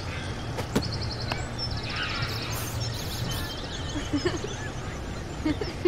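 Small birds chirping and giving rapid high trills, over a steady low background rumble, with a few sharp clicks about a second in.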